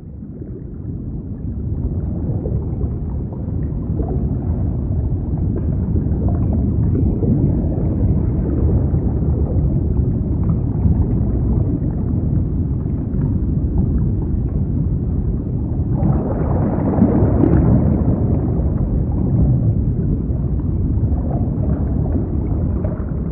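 Muffled underwater ambience: a steady low rumble and churn of water as heard below the surface. It fades in over the first couple of seconds and grows brighter and a little louder about two-thirds of the way through.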